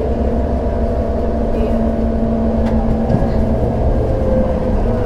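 2011 New Flyer C40LF city bus running on its Cummins Westport ISL-G natural-gas engine: a steady low drone with a held tone that changes to a lower one about three seconds in.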